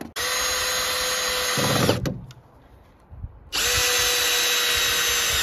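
Power drill driving a screw into a wooden wall stud to fix the framed wall in place, in two runs of about two seconds each, with a steady motor whine that spins up at the start of each run.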